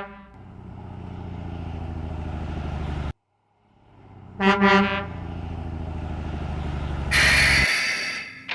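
Garbage truck sound effects: an engine rumbling steadily, cutting out about three seconds in and starting again, with a double horn toot midway and a loud burst of hiss near the end.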